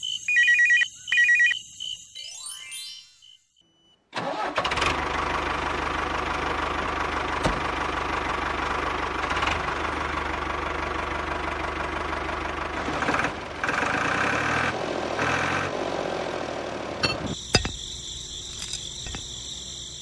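A few chiming dings and a rising glide. About four seconds in, a steady engine sound like a tractor's starts and runs for about thirteen seconds with a low rumble. Near the end it gives way to high steady tones and a few clicks.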